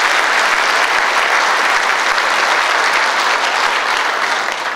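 Large audience applauding, a dense steady clatter of many hands that starts to die away near the end.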